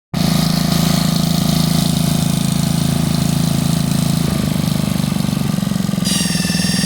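Lifan 79cc single-cylinder four-stroke engine running at idle or low throttle, making the unexplained noise that appears only in that range. About six seconds in, a high whine of several steady tones sets in over the engine note.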